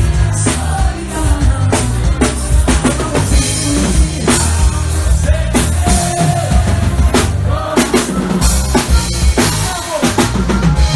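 Live forró band playing an instrumental passage, driven by drum kit and bass with regular drum strokes.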